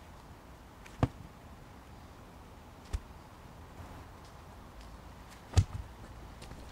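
Three dull knocks of heavy flat sandstone slabs being set down on the ground, a second or two apart, the last the loudest.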